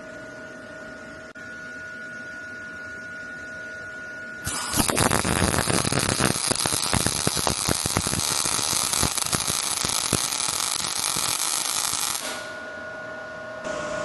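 MIG welding arc burning for about eight seconds, starting about four and a half seconds in, with a loud crackle full of irregular pops. It is the gun being dragged, the technique the narrator warns beginners off. Before and after the weld there is only a steady electrical hum.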